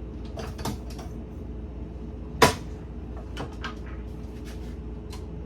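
Clicks and knocks of a stand mixer's whisk attachment and bowl being fitted into place, with one loud sharp knock about two and a half seconds in.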